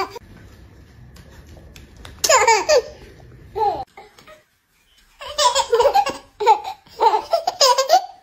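Toddler laughing in bursts: a short laugh about two seconds in, then, after a pause, a run of high giggles in the second half.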